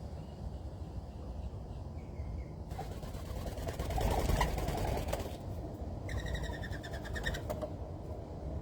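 Birds at a backyard feeder: a rushing, noisy burst lasting a couple of seconds about three seconds in, then a short, rapid rattling bird call about six seconds in. Throughout there is a steady low rumble.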